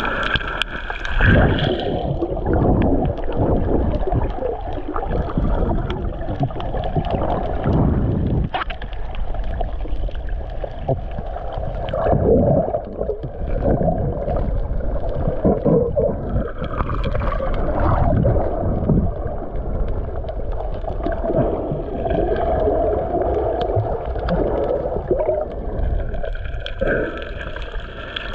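Water sloshing and gurgling heard underwater: a muffled, low, continuous rush that swells and dips irregularly.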